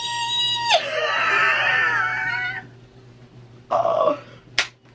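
A woman's excited high-pitched squeal, held on one note for under a second and then wavering on for about two seconds more; a short 'oh' comes near the end, followed by a sharp hand smack.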